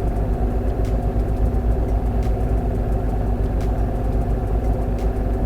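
Steady low machine hum made of several even tones, with a few faint clicks over it.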